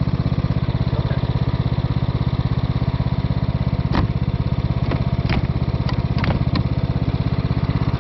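Cub Cadet riding lawn mower engine running steadily at rest. Several short clicks and knocks between about four and seven seconds in, as the plastic grass-bagger lid is handled and shut.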